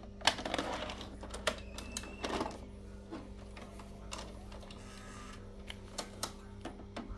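VHS cassette pushed into a Panasonic NV-J22 front-loading VCR and drawn in by its loading mechanism: a quick run of plastic clicks and clunks over the first two and a half seconds, with a short high tone about two seconds in. A few single clicks follow near the end, over a steady low mains hum.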